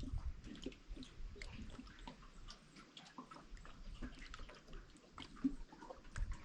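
Water trickling and dripping, with many small, irregular plinks and splashes.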